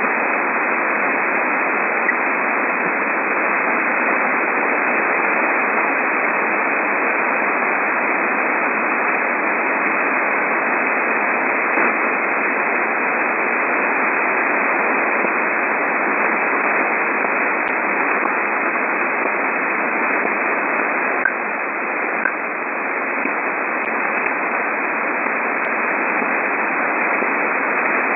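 Shortwave receiver tuned near 13 MHz giving a steady band-limited static hiss. A few faint, sharp pips or ticks come at random through it, two of them close together near the end. Their origin is unknown.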